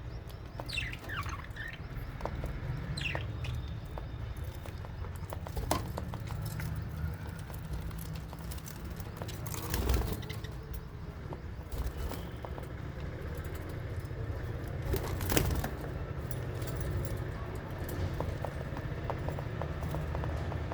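Small parrots in an aviary: a few short, falling chirps in the first few seconds, then occasional sharp knocks and rustles of wings and perches, over a steady low rumble.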